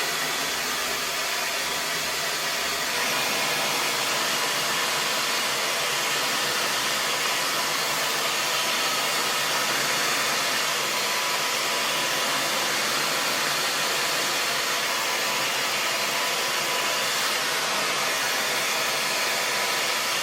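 Handheld hair dryer running steadily, a constant rush of blown air with a faint motor whine, getting slightly louder about three seconds in.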